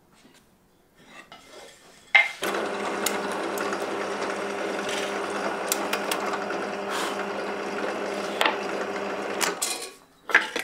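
Bench drill press switched on about two seconds in, running with a steady hum while its bit drills holes through pine boards, then stopping near the end, followed by a knock or two of the boards being handled.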